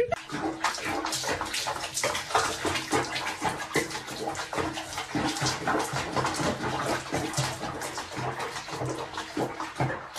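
Bath water splashing and sloshing irregularly in a foamy bathtub with a cat in it.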